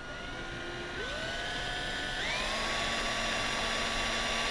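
Cordless drill with a 3/16-inch bit running and drilling through a plastic motocross fork guard. The motor whine steps up in pitch about a second in and again about two seconds in, as the drill speeds up.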